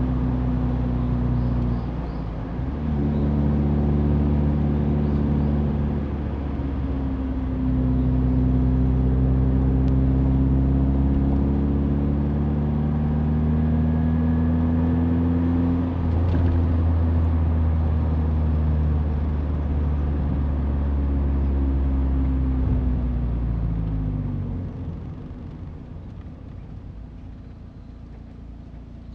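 Mazda Roadster four-cylinder engine under way, its note stepping and gliding with gear changes and throttle. Near the end it drops away to a quiet low hum as the car slows for a stop sign.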